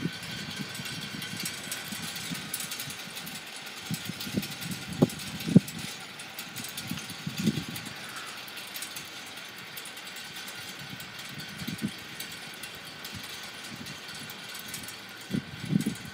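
Strong gusty wind buffeting the microphone in irregular low rumbles, strongest about four to six seconds in and again near the end, over a steady outdoor hiss.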